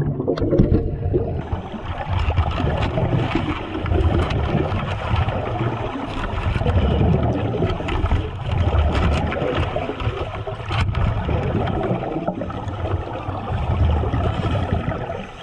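Churning water and bubbles heard underwater, with a pulsing low rumble as a great white shark thrashes against a diving cage, and a few sharp knocks.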